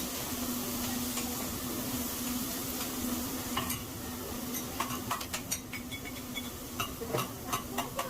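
Food sizzling on a hibachi (teppanyaki) griddle, with a metal spatula clicking and scraping against the hot plate in quick strokes from about halfway through.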